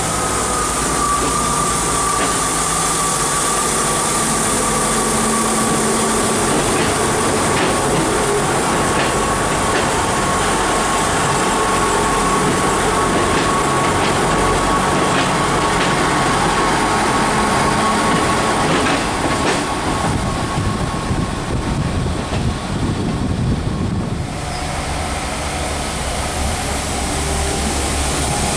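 A train moving through the station: a steady whine that slowly falls in pitch over the rumble of the train, with wheels clicking over rail joints about once a second. About 24 seconds in, the whine and the upper hiss drop away, leaving a low engine hum.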